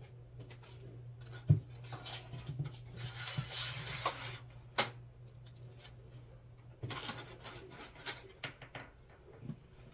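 Small clicks, knocks and rustling from hands handling things at a window, the sharpest click about one and a half seconds in, over a steady low hum.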